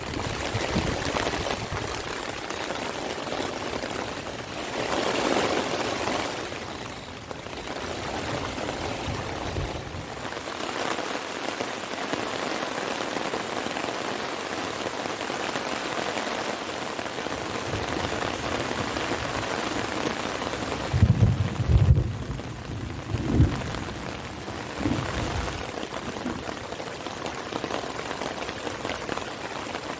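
Heavy rain falling steadily, swelling briefly about five seconds in. A few short low thumps come around two-thirds of the way through.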